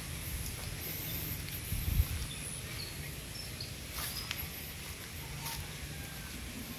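Outdoor ambience: a steady low rumble with a bump about two seconds in, a few faint clicks, and several short, faint, high chirps of small birds.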